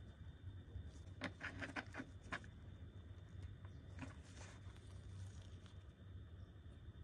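Faint clicks and taps of small plastic figure parts being fitted together by gloved hands: a quick run of clicks about a second in, and a few more near the middle.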